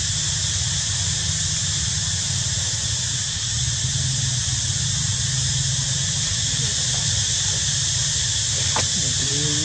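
Steady high-pitched hissing drone with a low hum underneath, unchanging throughout; a single click near the end.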